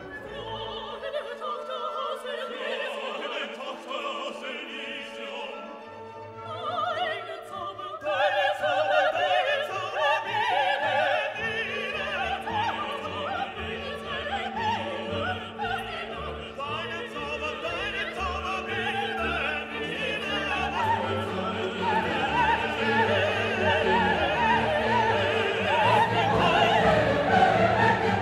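Background music: operatic classical music with orchestra and a singing voice, growing fuller about a third of the way in.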